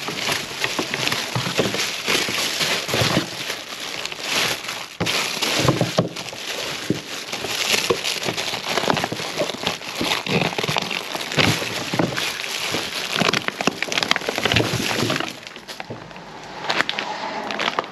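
Plastic food packaging rustling and crinkling as gloved hands rummage through a full wheelie bin of wrapped produce, with many small clicks and knocks of packs and trays being shifted. It dies down briefly near the end.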